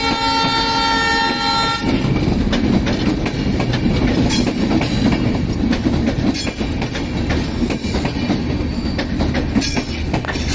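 Diesel train horn held for about two seconds, then cutting off, followed by the rumble and wheel clatter of a train rolling through the station.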